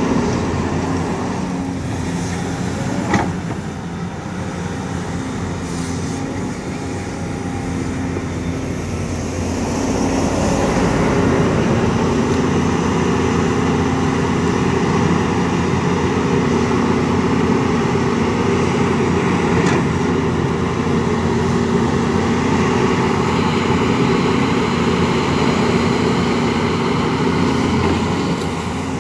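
Volvo EC210 LC excavator's diesel engine and hydraulics running steadily as it digs mud, working harder from about ten seconds in. A sharp knock about three seconds in and a brief rising whine partway through.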